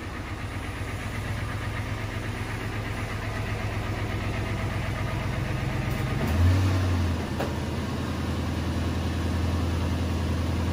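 Lexus LX470's 4.7L 2UZ-FE V8 idling steadily as the SUV creeps into the garage. There is a brief swell in engine sound about six seconds in as it comes to a stop, and it then settles into a steady idle, left running to warm up the oil. A faint click follows shortly after.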